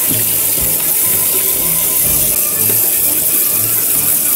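Tap water running and splashing as a turtle-tank filter box is rinsed out.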